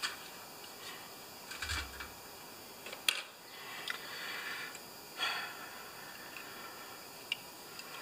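Light clicks and taps of a Tecumseh carburetor's small parts being handled and checked by gloved hands, with a soft bump about two seconds in and a sharp click about three seconds in.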